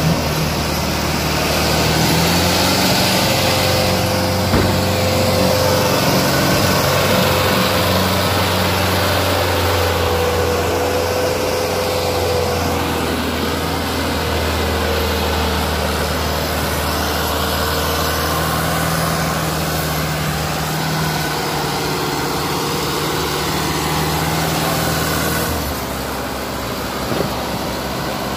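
Sonalika DI 750 tractor's diesel engine running steadily while hauling a trailer loaded with sand, its pitch wavering slightly; it gets a little quieter near the end.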